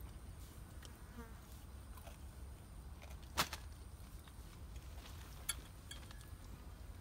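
Steady high-pitched drone of night insects, with a few light clicks and taps from eating off plates: a sharp click a little past three seconds in and a smaller one about two seconds later.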